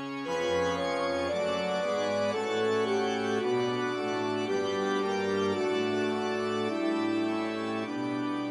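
Background music: sustained melodic notes over held lower tones, stepping to a new pitch about once a second.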